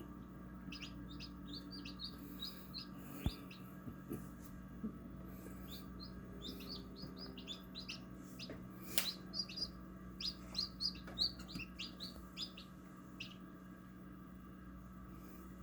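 Newly hatched chicks peeping: quick runs of short, high chirps, one run early and a longer one in the middle, over a steady low hum. Two sharp clicks cut in, about three seconds in and again near nine seconds.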